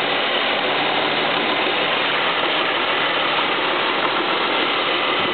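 Ford Mustang 3.8-litre V6 engine idling steadily, with a metal-on-metal clacking noise. The owner suspects it comes from the water pump or started after headers were fitted.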